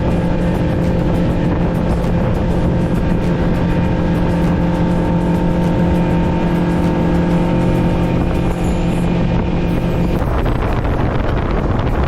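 Motorboat engine running at a steady speed with wind and water rushing past. About ten seconds in, the engine's steady tone drops away and the rush of wind and water takes over.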